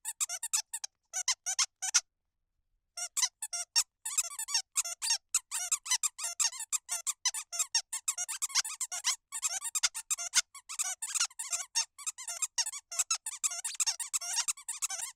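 12-inch hound dog squeaky toy squeaked over and over in quick, high-pitched squeaks, with a pause of about a second about two seconds in, then stopping abruptly at the end.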